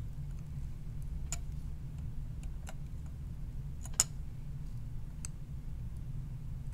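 Flush cutters snipping the wire leads of through-hole resistors on a circuit board: four sharp, short metallic clicks, the loudest about four seconds in, over a steady low hum.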